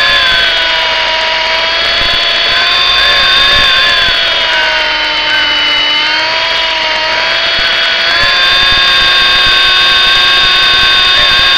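Electric motor and gear whine of an MJX F45 RC helicopter, heard from its onboard camera, steady and high-pitched. The pitch sags about halfway through and climbs back a couple of seconds later.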